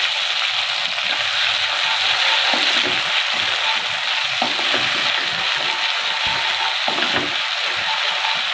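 Browned onions and ginger-garlic paste sizzling in hot oil in a nonstick wok, a steady hiss, while a slotted spatula stirs them with irregular scraping strokes.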